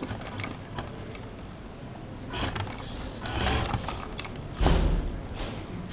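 A small wheeled competition robot's drive motors running in three short bursts as it moves and turns its boxed load across the board. The last burst, about four and a half seconds in, comes with a thump.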